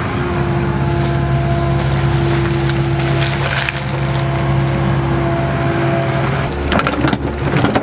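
Kubota KX080-4 excavator's diesel engine running steadily at working speed with its hydraulics whining as the bucket swings over a shale pile. Loose shale slabs clatter down onto the pile about three seconds in and again near the end.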